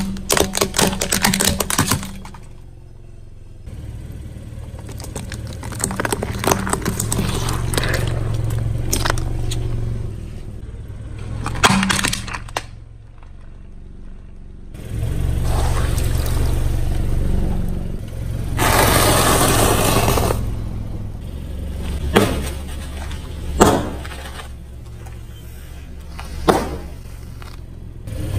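A car tyre rolling slowly over objects and crushing them, over the low steady hum of the car's engine: plastic toy binoculars crackling and snapping in a quick run at the start, then further crunches and single sharp cracks as other items give way.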